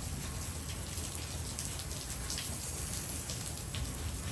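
Steady downpour of rain, with many individual drops ticking among the constant hiss.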